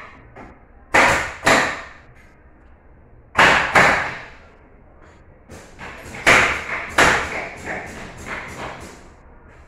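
Pneumatic nail gun firing into pine frame wood: each shot is a sharp crack with a short hiss of air. Two shots come about a second in, two more just past three seconds, then a quicker run of shots in the second half.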